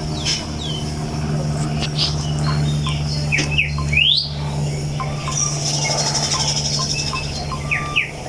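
Birds chirping, with several short, sharply rising whistles spaced a second or two apart, over a steady low hum.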